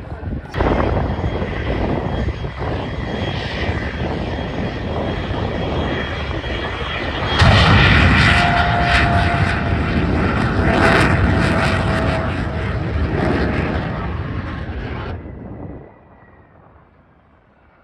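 Propeller aircraft engine running loudly; it gets louder about halfway through, then falls away sharply near the end.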